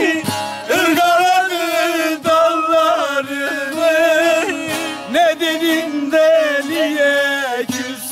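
Several bağlamas (long-necked saz) played together while a man sings a long, wavering melismatic line of a Turkish folk song (türkü).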